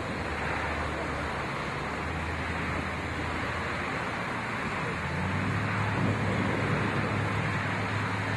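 Steady rumbling background noise with a low hum that gets louder about five seconds in.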